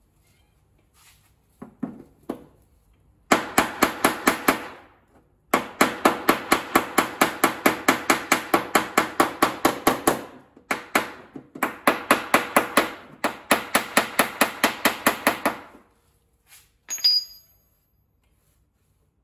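Rapid hammer blows on the steel rear fender lip of a Mazda RX-7 FC, beating a rolled-in fender lip back out to its original shape. The blows come in runs of about six a second with short pauses, and a brief high metallic ring sounds near the end.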